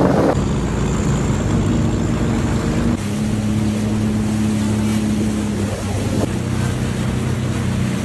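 Jet ski engine running steadily on a river, with water and wind noise. The pitch of the hum jumps abruptly twice, about three seconds in and again past six seconds.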